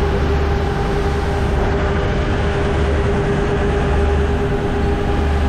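Glass-bottom tour boat's engine running steadily under way, a constant low rumble with a steady hum, over the rush of water from the wake.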